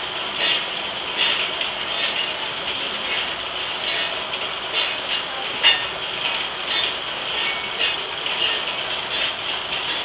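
Steam-powered circular sawmill running without cutting: a steady mechanical clatter of the turning blade and carriage gearing, with irregular light clicks.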